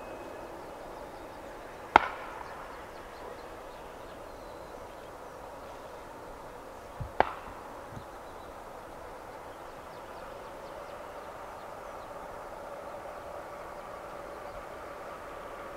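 Embraer ERJ-145 jet's two tail-mounted Rolls-Royce AE 3007 turbofans running up for takeoff: a steady drone that strengthens slightly toward the end. Two sharp knocks, the loudest sounds, come about two seconds in and again about seven seconds in.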